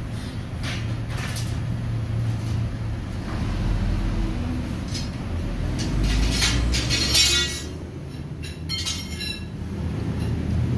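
Metal clicks and rattles as a welding electrode holder, its clamp and a thin stainless filler rod are handled, densest a little past the middle, over a steady low rumble.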